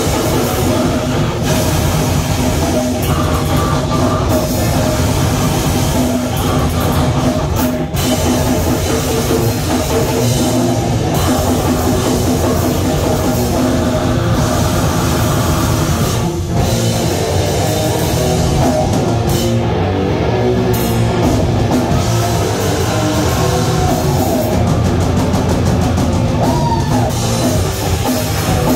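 Live rock band playing loudly through a club PA, with a pounding drum kit and guitar.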